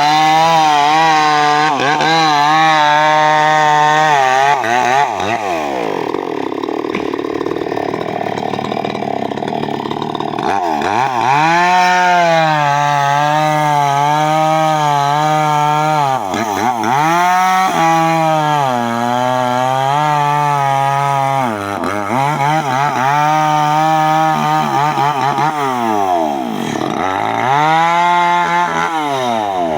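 Two-stroke chainsaw cutting teak wood, the engine running at high revs and dropping back several times before revving up again.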